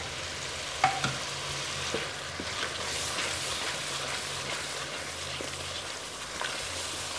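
Onion-tomato masala with freshly added ground spices sizzling in hot oil in an aluminium pan while a wooden spoon stirs it. There is a sharp knock with a short ring about a second in, and a few lighter taps after it.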